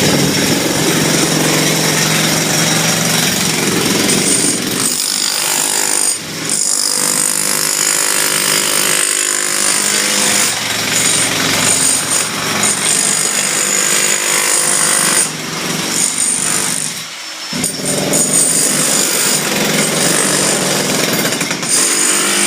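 A loud power tool running steadily, with a brief let-up about six seconds in and a longer break around the two-thirds mark before it runs again.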